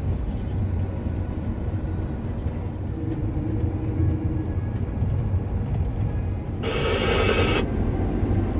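Heavy vehicle engine running steadily with a deep, even rumble. A brief, louder rasping noise comes about seven seconds in.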